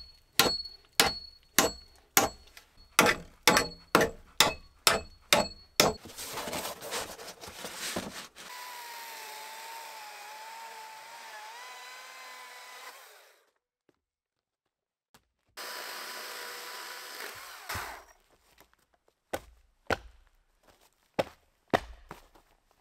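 A hatchet striking a log about a dozen times, roughly two blows a second. Then a chainsaw running steadily as it rips a log lengthwise for about five seconds, stops, and runs again briefly, followed by a few scattered knocks of wood.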